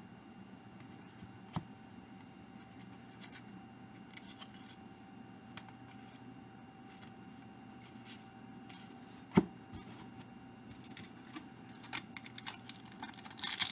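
Quiet handling of trading cards and a pack. There are a few sharp clicks, one about a second and a half in and a louder one about nine seconds in, then the rustle and crinkle of a card pack wrapper being opened, building near the end.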